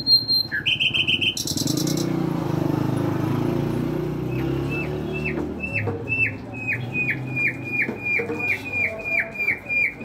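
Caged nightingale singing: a high held whistle and quick high trills, then, after a low rumble, a long run of short down-slurred notes repeated about two to three times a second.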